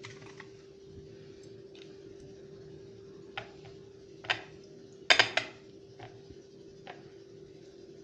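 Scattered clinks and taps from a plate and utensils being handled while fish is coated in flour, the loudest cluster about five seconds in, over a steady hum.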